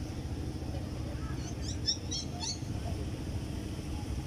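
A bird calling with a quick run of high, short chirps a little over a second in, over a steady low rumble.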